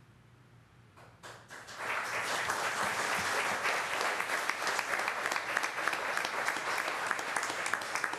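Audience applauding: a few scattered claps about a second in, then building into full, steady applause.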